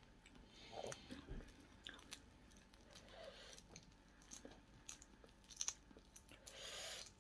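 Quiet chewing with scattered small clicks and crackles of a prawn's shell being peeled apart by hand.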